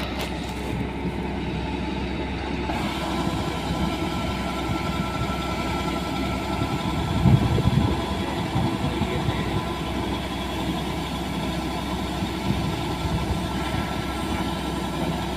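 An engine running steadily, a constant mechanical hum with a few steady tones over it and a brief louder patch about seven seconds in.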